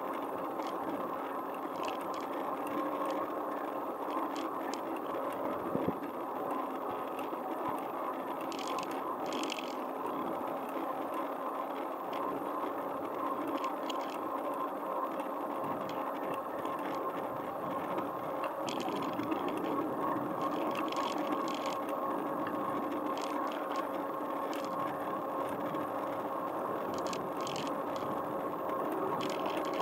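Bicycle rolling along a paved street: a steady hum of tyres and drivetrain with a faint constant whine, and short rattles now and then.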